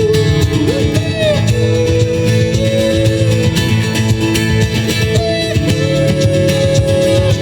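Live street-busking music: strummed guitar with a held melody line on top, an instrumental passage of an acoustic pop cover between sung lines.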